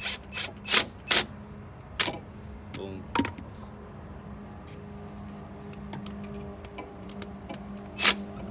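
Sharp metallic clicks and clinks of hand tools and brake hardware being handled at a car's rear brake caliper bracket: a quick run of about five early on, then single ones about 2 s, 3 s and 8 s in, over a steady low hum.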